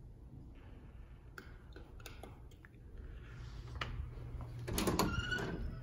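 Faint footsteps and light clicks while walking with a handheld phone, then a closet door's latch clicking and a short squeak about five seconds in as the door is opened.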